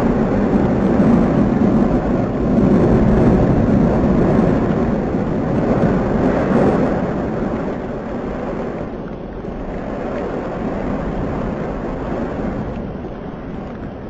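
Steady roar of the Fagradalsfjall eruption, lava fountaining and degassing from the main cone. It eases off gradually in the second half.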